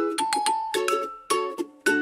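Gentle children's background music: a bright plucked and chimed melody of short notes, several a second.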